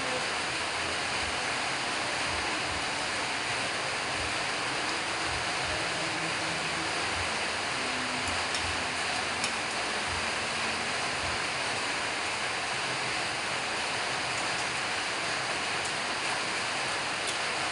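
A steady, even hiss of background noise at an unchanging level, with a few faint light clicks in the second half.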